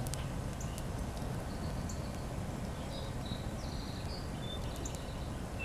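Wild birds giving short high chirps and calls in the early-morning woods, mostly in the second half, over a steady low background rumble. A few faint crackles from a campfire come near the start.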